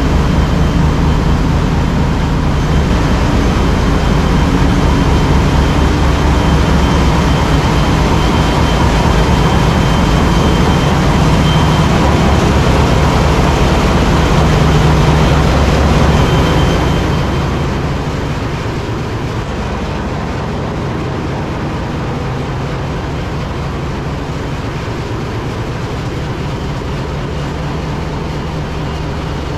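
Loud, steady drone of a ship's engine-room machinery, dominated by the deep, rapidly pulsing rumble of large diesel engines running. The noise drops noticeably a little past halfway through.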